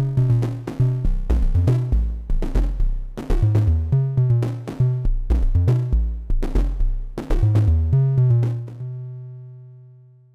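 Analogue percussion synthesizer (Slim MPS eurorack modules, a version of Thomas Henry's Mega Percussive Synth) playing a fast drum pattern of pitched electronic drum hits with low, booming tones. The pattern stops near the end and the last hit, a low tone with some metallic ringing overtones, decays away.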